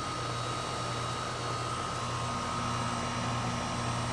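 2008 Goodman heat pump outdoor unit running in heat mode: a steady fan rush over an even low compressor hum, with a faint steady whine above.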